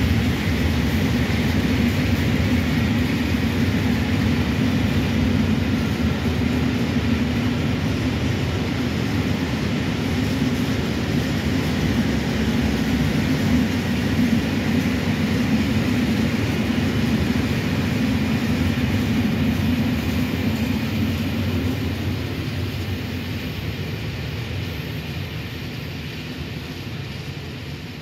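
Long train of Eas and Eanos high-sided open freight wagons rolling past on the rails, a steady rumble of wheels on track that fades away over the last several seconds as the end of the train moves off.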